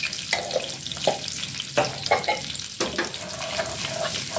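Hot butter and oil sizzling in a metal pan for a tadka, stirred with a wooden spatula that scrapes and knocks against the pan about six times.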